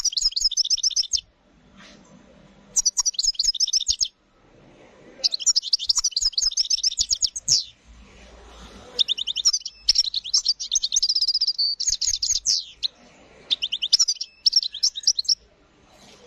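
European goldfinch singing: five phrases of rapid, high trills separated by short pauses, with a brief held note partway through the longest phrase.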